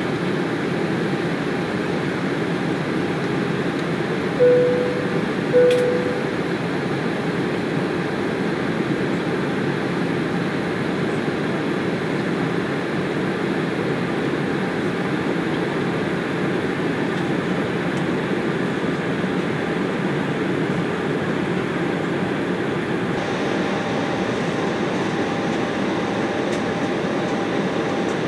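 Steady cabin noise inside a climbing Embraer E190 jet airliner: the even rush of airflow and the hum of its turbofan engines. A few seconds in, two short chime tones at the same pitch sound about a second apart. This is the cabin chime that goes with the seatbelt sign going off.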